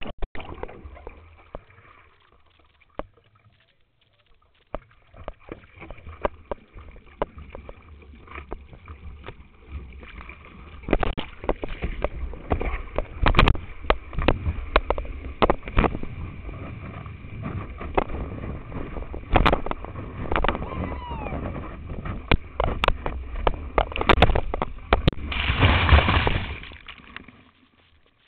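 Whitewater rushing and splashing around a surfboard-mounted camera during a ride, full of sharp knocks and crackles from water and spray striking the camera. It is quiet at first, grows loud about ten seconds in, is loudest near the end, and then drops away suddenly.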